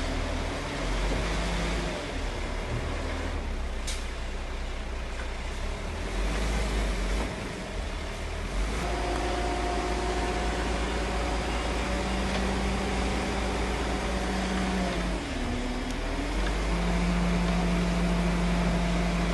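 Diesel engine of heavy earthmoving machinery running steadily with a deep rumble. Its pitch dips briefly under load about three quarters of the way through, then recovers.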